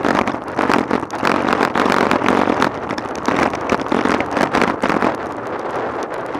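Wind buffeting the microphone and road noise from a road bike riding at speed in a group, with many quick knocks and rattles as the bike and camera shake over the rough road surface. It is loudest for the first five seconds, then eases a little.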